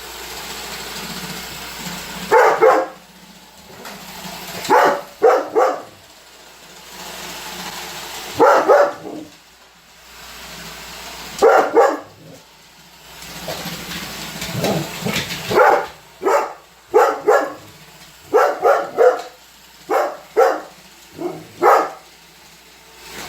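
Weimaraner barking repeatedly at a running Roomba robot vacuum: short, loud barks, singly or in quick pairs and threes, with a few seconds between bursts. The vacuum's steady running hum can be heard between the barks.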